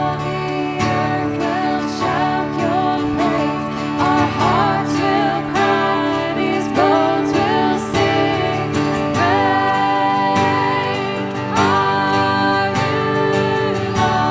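Worship song: strummed acoustic guitar chords under a singing voice.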